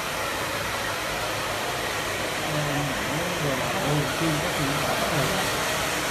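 Hair dryer blowing steadily, with voices talking over it in the middle.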